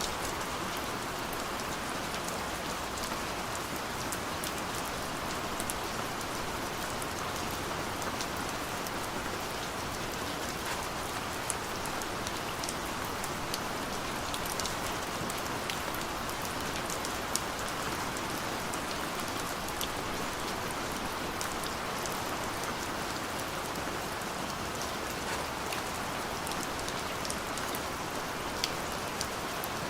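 Steady rain falling, with an even hiss and scattered drop ticks.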